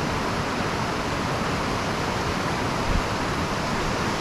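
Steady wind noise rushing over the microphone, with irregular low buffeting and one brief low thump about three seconds in.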